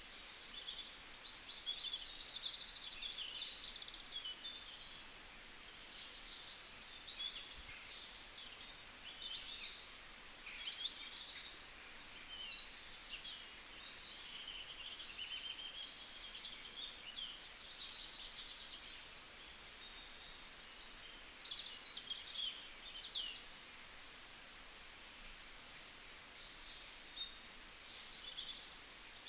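Many small birds chirping and twittering, with overlapping high, quick calls and trills.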